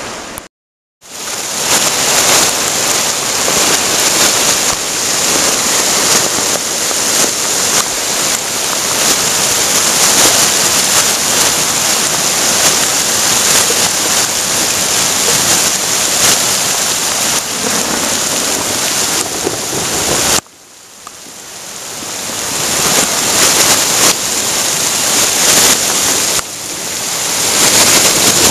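Heavy hail pelting the ground, vegetation and a road: a loud, dense hiss of countless small impacts. It drops away sharply about two-thirds of the way through, then builds back up to full strength.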